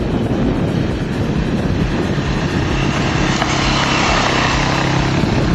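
Small 150cc four-stroke ATV engine running as the quad is ridden across grass toward the microphone; a rough rumble at first, then a steady engine note from about two seconds in.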